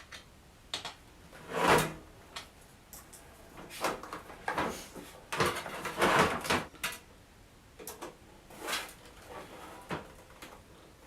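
A series of knocks, bumps and scrapes as a non-modular PC power supply with its cables attached is handled and set into the bottom of a computer case; the loudest knock comes a little under two seconds in, with a busy cluster of scraping and clunks in the middle.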